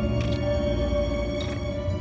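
Dark, eerie soundtrack music: a sustained low drone under a steady held tone, with two brief hissing swells, about a quarter second and a second and a half in.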